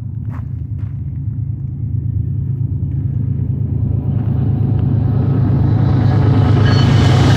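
BNSF GE diesel locomotives, led by an ES44DC, pulling an intermodal train toward the listener: a steady low engine rumble that grows louder and fuller as the train closes in.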